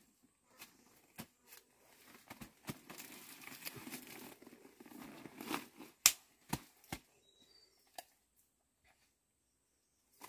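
Dong leaves rustling and crackling as a large tied bundle of them is handled and shifted, followed by four sharp cracks a little past the middle.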